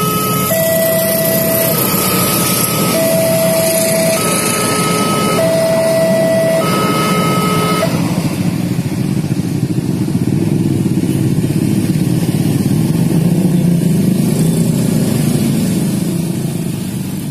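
Railway level-crossing warning alarm sounding an electronic two-tone chime that switches between a low and a high note about every second, over the rumble of idling motorcycles. The alarm stops about eight seconds in, and the motorcycle engines then rev up and pull away as the crossing opens.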